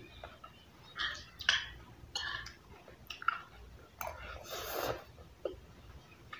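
Close-up eating sounds of a person eating noodles: wet chewing noises in short bursts, then a longer slurp lasting nearly a second about four seconds in as a forkful of noodles goes into the mouth.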